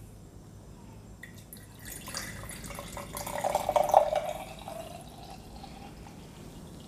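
Lemonade poured from a glass bottle into a glass mason jar, the liquid splashing into the jar as it fills. It is loudest about three to four seconds in, then trails off.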